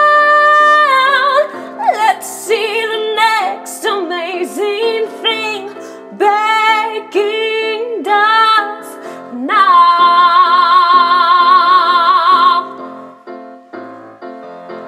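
Solo female voice singing the final melisma of a song over piano: a held note, then a run of short sliding notes, then a long high note with vibrato. The voice stops near the end, leaving the piano chords to ring out and fade.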